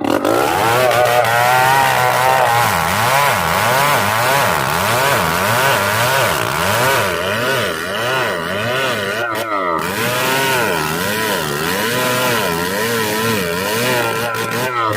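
Two-stroke chainsaw cutting through a large log, its engine pitch rising and falling about once a second as the load on the chain changes, with a brief drop about two-thirds of the way through.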